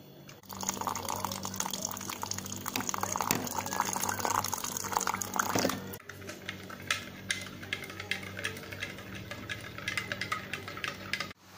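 Water running from a dispenser into a glass mug, then a spoon clinking repeatedly against the glass as the drink is stirred.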